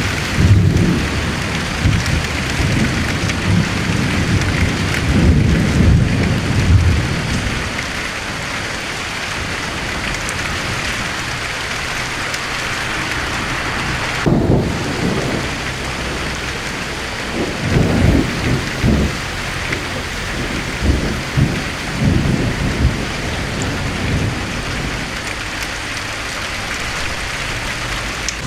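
Steady rain falling, with rolls of thunder. A long low rumble runs through the first several seconds, and shorter rumbles come about halfway and a few more after that.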